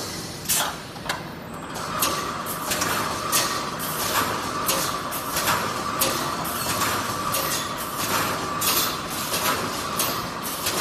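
Full-automatic welded wire mesh panel machine running its welding and mesh-pulling cycle: sharp metallic clanks and knocks about twice a second over a steady high whine.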